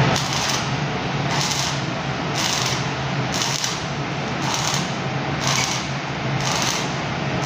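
Arc welding on a steel railing: the arc's steady crackling sizzle, swelling into brighter hissing surges about once a second, over a steady low hum.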